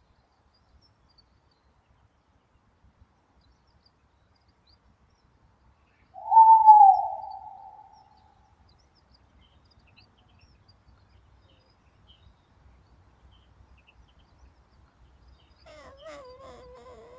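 Owl's screech: a single loud shrill cry about six seconds in, rising then falling and fading over about two seconds. Near the end a faint wavering call from the owlet begins.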